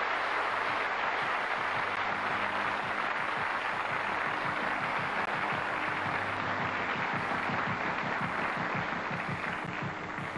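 Audience applauding steadily, easing a little near the end.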